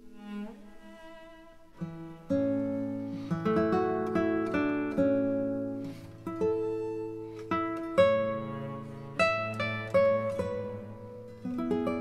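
Background instrumental music on a plucked-string instrument: notes and chords struck sharply, each dying away, in a steady flowing line.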